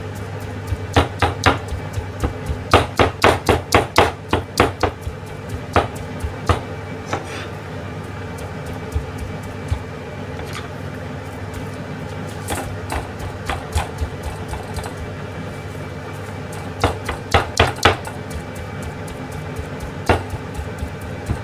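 Kitchen knife chopping ground meat on a plastic cutting board, pounding it to make it sticky for meatballs. The knocks come in quick runs of about three to four a second, with pauses between runs, over a steady low hum.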